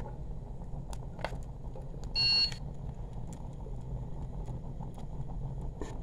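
A handheld infrared thermometer gives one short electronic beep about two seconds in, over a low steady rumble.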